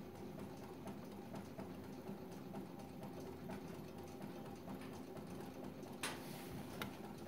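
Stovetop Stirling engine driving a 12-inch, five-bladed fan, running steadily with a quiet hum and a rapid, even mechanical ticking. A sharper click comes about six seconds in.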